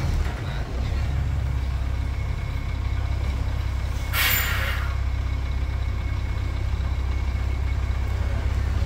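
Heavy tractor-trailer's diesel engine running with a steady low rumble as the rig creeps through a tight turn. About four seconds in comes a brief hiss of air let out of the air brakes.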